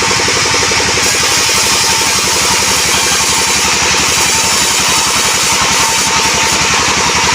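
Engine-driven band sawmill running steadily, its engine beating out a fast, even pulse under a loud hiss of the band blade cutting through albasia wood.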